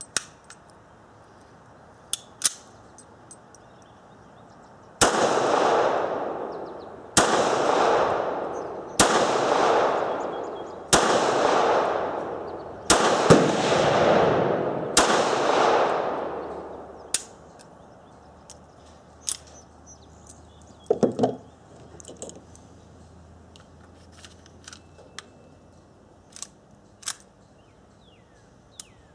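Six pistol shots from a P-64 pistol (9×18mm Makarov), fired about two seconds apart, each trailing off in a long echo under the range's roof. Small metallic clicks of the pistol being handled come before the shots, and a short clatter of handling follows a few seconds after the last shot.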